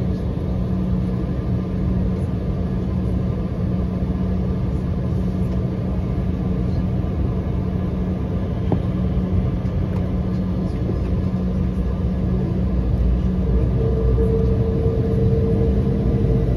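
Embraer E195 cabin noise while taxiing: the GE CF34 jet engines at taxi idle make a steady hum and rumble. About 13 seconds in the low rumble grows and a higher steady tone joins it.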